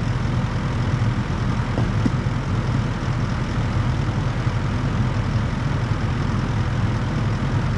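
A heavy-equipment diesel engine running steadily at a constant speed, with a low, even drone.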